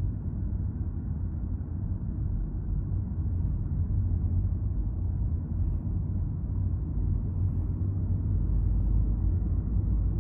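Steady low rumble of a car driving, tyre and road noise heard from inside the cabin.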